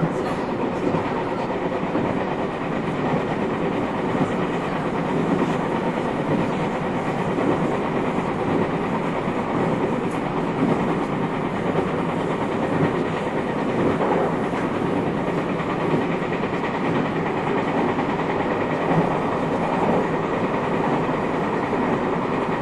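Inside KuMoHa 221-70, the motor car of a JR West 221 series electric multiple unit, while the train runs on the line: a steady rumble from the wheels on the rails, with a few knocks from the wheels over rail joints.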